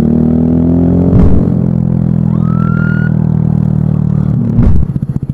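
A 125 cc motorcycle engine running at a steady speed, with a short rising siren chirp in the middle. Near the end there is a thump and the engine drops to an even, pulsing idle.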